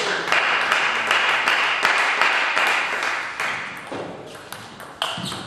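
Sharp clicks of table tennis balls striking bats and tables, over a dense hiss that fades after about three and a half seconds.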